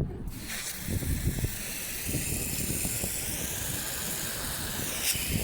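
Garden hose spraying a strong jet of water: a steady hiss that starts just after the beginning and cuts off near the end, over a low rumble.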